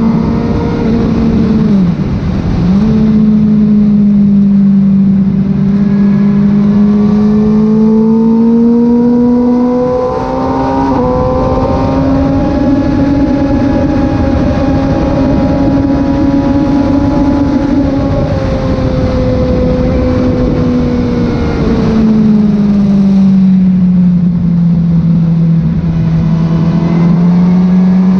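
Kawasaki ZX636 inline-four engine running on track under load, the freshly rebuilt engine being run in. The revs dip sharply about two seconds in, climb around ten seconds and hold, then fall back around twenty-two seconds before rising again near the end.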